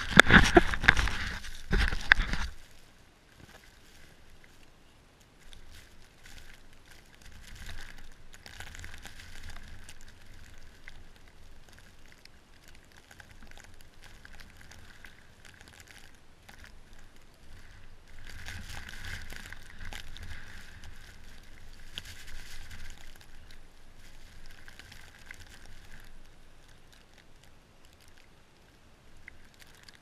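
Blizzard wind gusting over the microphone, a rough rushing noise that rises and falls in slow gusts. A louder burst of noise fills the first couple of seconds.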